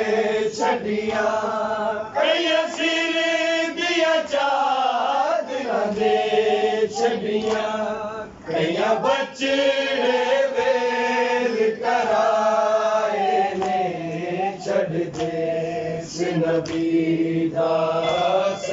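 Men chanting a Punjabi noha (Shia lamentation) without instruments: lead voices hold long, wavering notes, with others joining in, breaking off briefly between lines.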